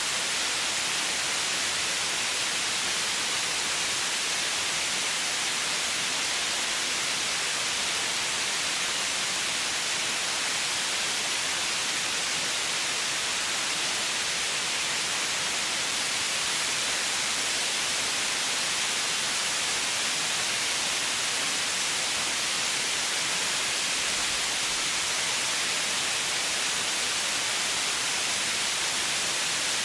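Steady white noise: an even, unchanging hiss, strongest in the high range.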